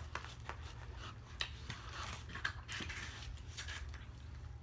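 Close-miked chewing and mouth sounds of someone eating, an irregular run of small clicks and crunches.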